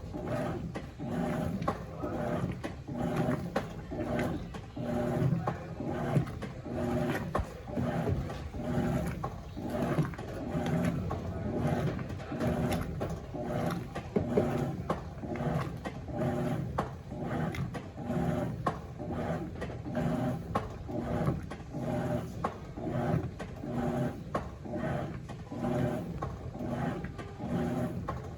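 Electrolux LF90 top-loading washing machine agitating a load of towels: the motor and agitator swish back and forth in a steady rhythm of about one stroke a second, with a constant motor hum under it.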